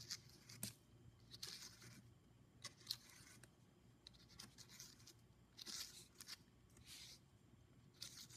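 Razor blade scraping dried glass enamel powder off sandblasted glass in short, irregular, faint strokes, with an occasional sharper click. The dried enamel is being scraped away along the etched tree lines to leave the colour only in the etching.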